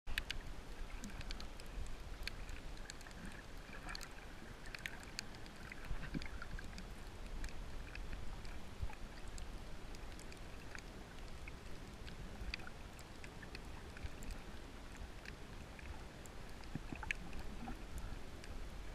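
Underwater sound picked up by a camera submerged in shallow seawater: a steady low rumble of moving water with scattered sharp clicks and crackles.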